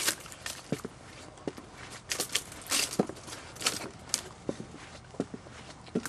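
Footsteps on the wooden planks of a boardwalk, a knock about every three-quarters of a second, mixed with short swishes of reeds brushing past.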